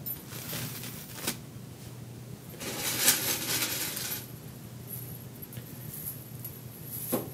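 A long statue chain clinking and jangling as it is handled and held up. There are light clinks at first and a louder run of jangling from about two and a half to four seconds in.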